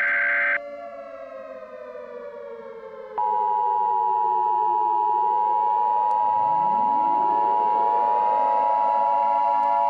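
Civil-defence-style alert siren winding down in pitch, then winding back up from about five seconds in. A loud steady alert tone comes in about three seconds in and holds over it, and a harsh buzzing alert tone cuts off about half a second in.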